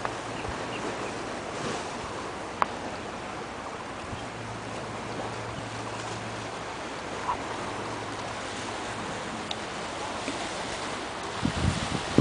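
Steady rushing outdoor noise, with a single sharp click about two and a half seconds in and low rumbling thumps beginning near the end.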